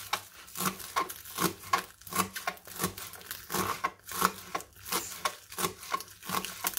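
Knife slicing green onions into rings on a plastic cutting board: a steady run of short chopping strokes, about three a second.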